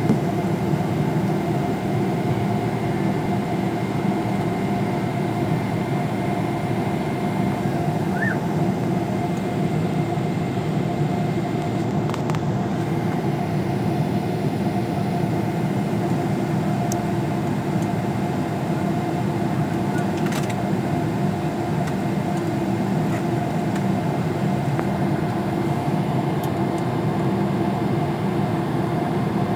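Steady jet engine and air-conditioning noise inside an airliner cabin, holding an even level with a few steady hums and a faint high tone that fades out about eight seconds in.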